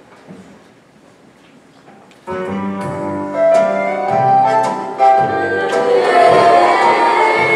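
Faint room noise, then about two seconds in a musical accompaniment starts abruptly and a children's choir sings over it.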